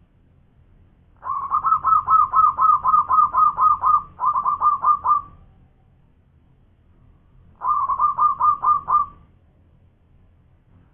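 Zebra dove (perkutut) singing its staccato cooing song: a run of about a dozen quick notes at about four a second, a short run of about five right after, then a pause of a couple of seconds and another run of about seven notes.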